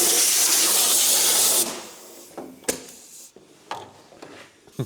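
Compressed-air blow gun blowing drill chips out of freshly drilled holes: a loud, steady hiss that cuts off suddenly about a second and a half in. A few light clicks and knocks follow.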